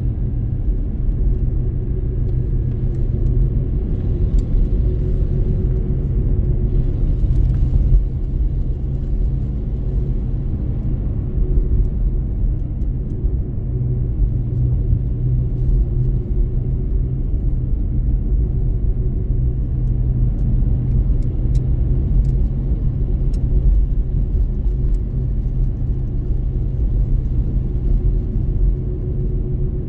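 Car driving on a wet road: a steady low rumble of engine and road noise.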